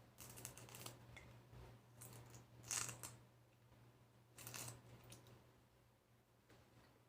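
Lychee shells being cracked and peeled by hand: quiet, short crackling and tearing bursts, three or so, the loudest about three seconds in, over a faint steady low hum.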